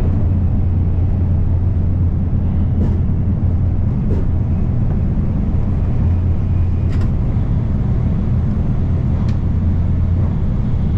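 Steady low rumble and hiss of a train in motion, with a few faint ticks scattered through it.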